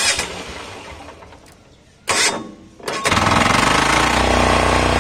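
Kama single-cylinder diesel engine on a four-wheel power weeder being key-started: a short burst of starter cranking about two seconds in, then it catches about three seconds in and settles into a steady, rapid diesel clatter.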